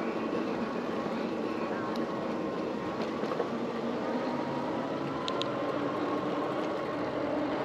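Steady rushing wind and tyre noise while riding, with a faint thin whine that rises slowly in pitch partway through.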